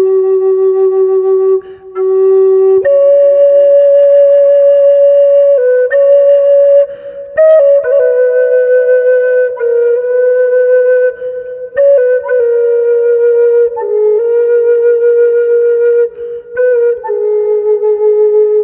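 Solo Native American-style flute playing a slow melody of long held notes, with short pauses between phrases.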